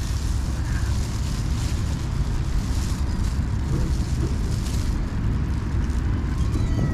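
Wind buffeting the microphone: a steady rough low rumble with a hiss that swells and fades in gusts. A cat meows faintly once or twice.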